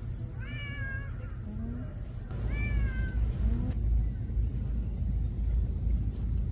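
A cat meowing twice, two short meows about two seconds apart, each rising then dropping slightly in pitch. A low rumble in the background grows louder about two seconds in.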